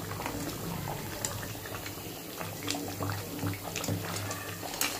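Crab curry simmering in a pot: the thick gravy bubbling with low, irregular plops and scattered small pops.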